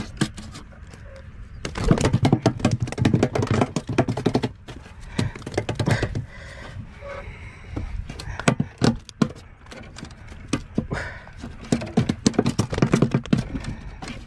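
Freshly caught fish flopping on a wooden boat's floorboards: irregular flurries of rapid slapping knocks, thickest about two to four seconds in and again near the end.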